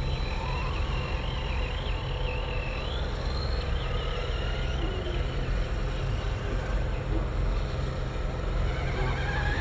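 Electric RC buggy's brushless motor whining, the pitch wavering up and down with the throttle and climbing again near the end, over a low rumble.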